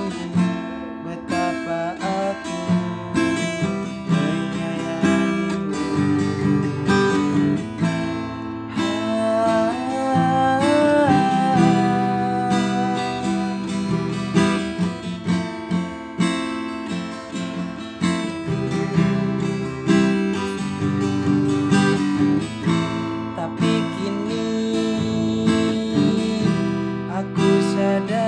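Acoustic guitar strummed in a steady rhythm of chords, with a man's voice joining in places, most clearly about ten seconds in.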